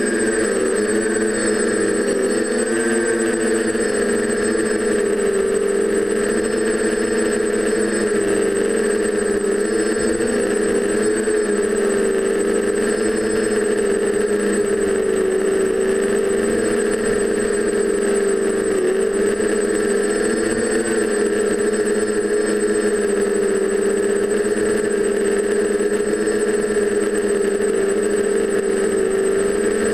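TBS Discovery quadcopter's four DJI 920Kv brushless motors spinning 9x5 propellers in flight: a steady buzzing hum that wavers slightly in pitch as the throttle shifts, with a thin, steady high whine above it.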